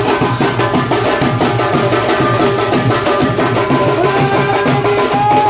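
Loud music with fast, dense drumming under a held melody line.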